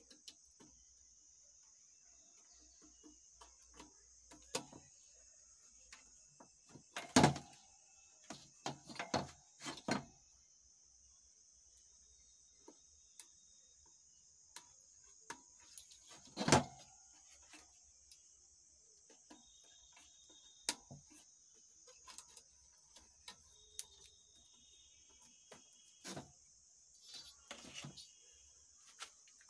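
Scattered clicks and knocks of metal parts being handled as a power amplifier's channel module, an aluminium heatsink with its circuit board, is fitted back into the steel chassis, with two louder knocks about 7 and 16 seconds in. A steady high hiss runs underneath.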